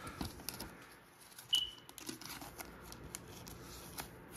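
Trading cards and their plastic being handled: soft plastic crinkling with scattered light ticks, and a brief high squeak about one and a half seconds in.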